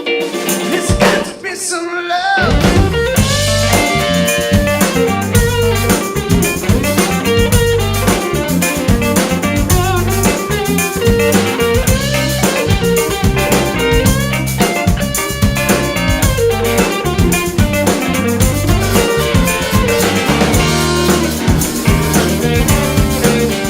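A covers band playing: guitar alone at first, then bass and drum kit come in about two seconds in and the full band plays on with a steady beat.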